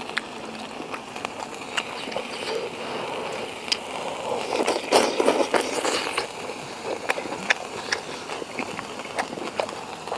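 Eating sounds: wooden chopsticks clicking against a porcelain bowl as food is picked out and eaten, with a louder stretch of eating noise about four to six seconds in, over a steady low hiss.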